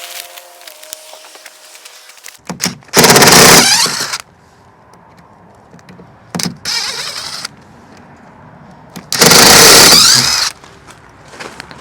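A power tool running in three loud bursts of about one to one and a half seconds each, with its pitch sweeping as it works, among scattered knocks and clatter from construction work.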